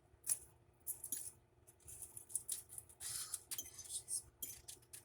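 Quiet, scattered clicks, scrapes and short crinkly rustles of food being handled on a plate, with a longer rustle about three seconds in.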